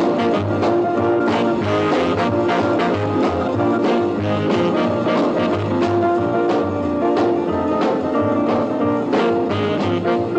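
Background music with a steady beat, sustained melody notes and a pulsing bass line.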